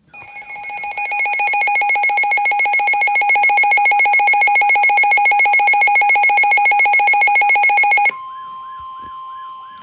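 Electronic weather alert alarm: a loud, rapidly pulsing tone that stops abruptly about eight seconds in. It gives way to a single steady warning tone, the cue that a severe thunderstorm warning broadcast is about to begin.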